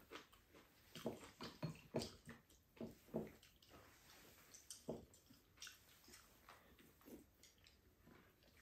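Faint eating sounds: scattered wet mouth smacks from chewing and light clicks of a spoon and chopsticks against ceramic bowls, a few louder clicks in the first half.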